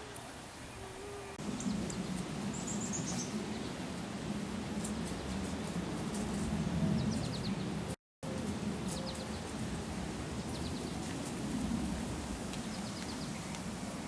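Small birds chirping in short high trills and calls over a steady low rumble of outdoor background noise. The sound drops out completely for a moment about eight seconds in.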